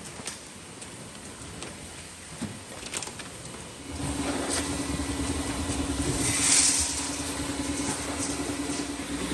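A few light clicks, then about four seconds in a motor starts and runs with a steady hum and low rumble. A short burst of hiss comes a couple of seconds later.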